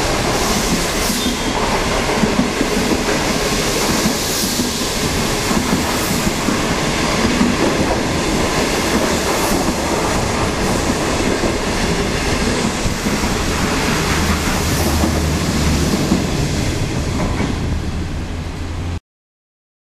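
Passenger coaches of an intercity through train rolling past at speed: a steady rumble of wheels and bogies with a clickety-clack over the rail joints. It eases slightly as the last coach goes by, then cuts off abruptly near the end.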